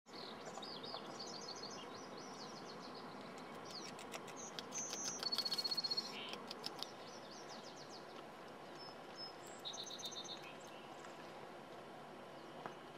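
Songbirds chirping and trilling over a steady outdoor hiss, the loudest a rapid high trill about five seconds in. Around the middle comes a run of sharp clicks, a North American beaver crunching on willow branches.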